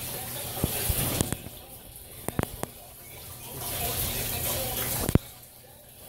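Water swirling down a vortex fountain's clear cylinder and draining into the barrel below: a rushing, splashing sound that rises and falls twice, with several sharp clicks of falling drips.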